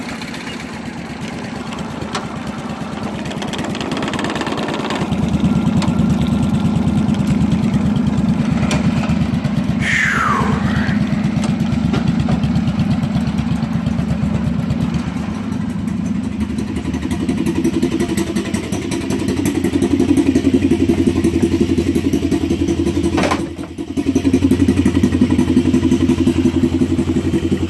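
Wheel Horse B-111 garden tractor's small engine running, louder and steadier from about five seconds in; the owner calls the motor junk. After a sudden break late on, a four-wheeler's engine runs at idle.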